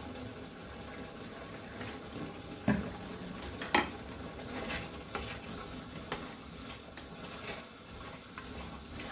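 Thick tomato-based stew bubbling at a simmer in a pot, stirred with a silicone slotted spatula that scrapes and taps against the pan. A couple of sharp knocks stand out about three seconds in.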